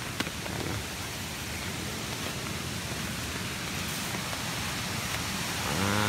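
Steady rain falling, with one brief click about a quarter second in.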